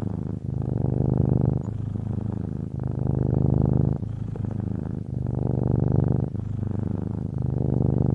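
Domestic cat purring: a steady low rumble that swells and eases with each breath, about four louder stretches of a second or so alternating with softer ones.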